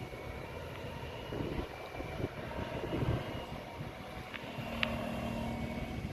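Strong wind buffeting the microphone in gusts, with distant engine noise underneath and a steady low engine hum that comes in near the end.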